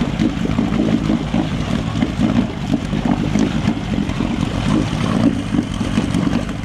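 1972 Johnson 9.5 hp two-cylinder two-stroke outboard running steadily in a test barrel, its propeller churning the water. The motor now runs continuously, but its low-speed idle is still not set right.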